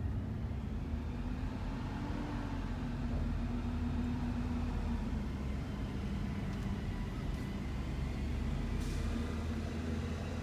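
Steady engine and road noise of a shuttle van driving, heard from inside the cabin.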